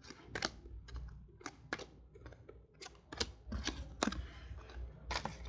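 A stack of football trading cards being flipped through by hand, with sharp, irregular clicks and snaps as each card is slid off the stack, about a dozen in all.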